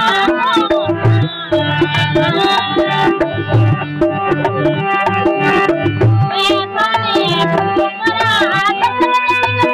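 Rajasthani folk wedding song music: a melody of held and gliding notes over a steady, regular drum beat.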